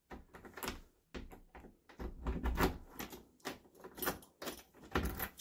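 Key being pushed into and turned in the lock of a uPVC door with a lever handle, giving a quick run of metallic clicks and clunks from the key, lock and handle.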